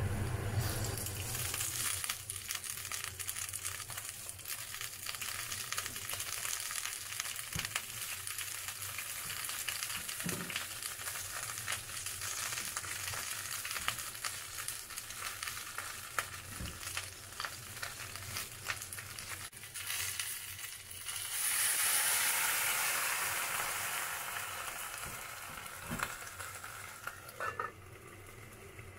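Olive oil sizzling with a fine crackle in a hot pot of nanohana (rapeseed greens). About three-quarters of the way through, a louder hiss swells up as boiling water goes into the hot pot to steam the greens, then slowly dies down.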